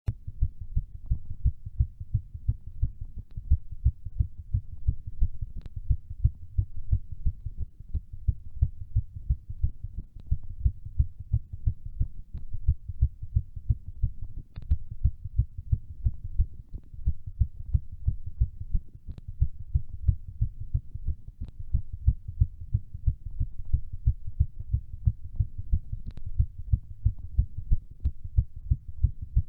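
Human heartbeat beating fast in a steady rhythm of low thumps, the heart rate raised by exercise during a workout.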